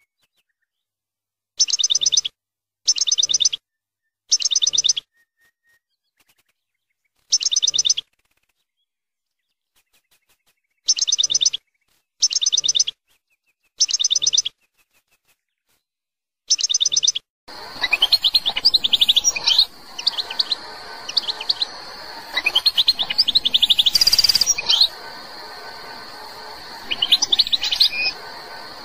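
Algerian goldfinch (European goldfinch) vocalising. Short identical buzzy bursts are repeated with gaps of one to three seconds. About two thirds of the way in, a continuous twittering song begins over a steady hiss.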